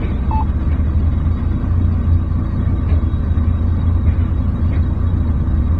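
Loaded dump truck's diesel engine pulling up a steep muddy slope: a steady low rumble.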